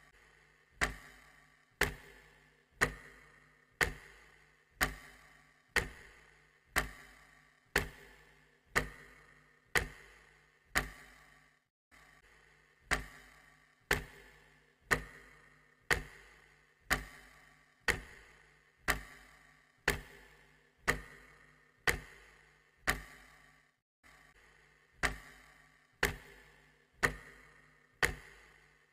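Clock ticking steadily about once a second, each tick sharp with a short ringing tail. The beat skips twice, once near the middle and once later on.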